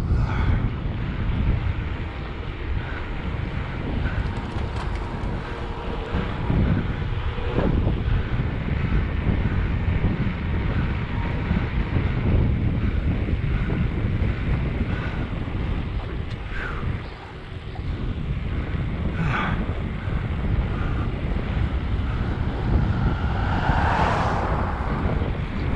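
Wind buffeting the microphone: a steady low rumble of wind noise, with a brief louder hiss about two seconds before the end.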